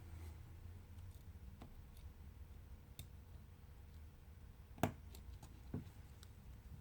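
A few separate small clicks and taps of tools and parts during smartphone disassembly, the sharpest about five seconds in, over a faint low hum.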